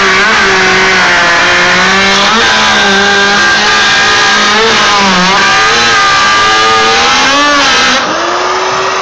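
Electric router running at full speed while cutting an arc through plywood, a steady high whine whose pitch dips and wavers as the bit bites into the wood. It drops in level near the end.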